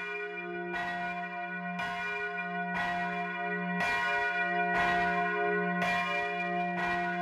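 Church bell ringing, struck about once a second, each stroke's deep hum and higher overtones ringing on into the next.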